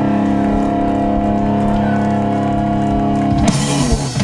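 Live rock band holding a final chord, electric guitars and bass sustaining together. About three and a half seconds in, a crash of drums and cymbals cuts the chord off, ending the song.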